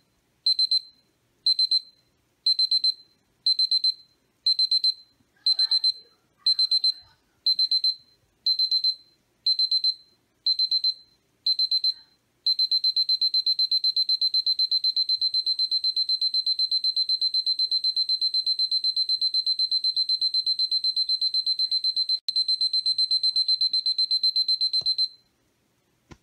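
Battery-operated digital alarm clock going off: high-pitched beeps in short groups about once a second, then from about halfway through a constant rapid beeping that cuts off about a second before the end. This is the alarm stepping up from beep groups to its constant stage.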